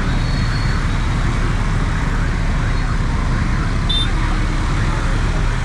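City road traffic heard from a moving double-decker tour bus: a steady rumble and noise with no letup, with a brief high thin tone near the start and another about four seconds in.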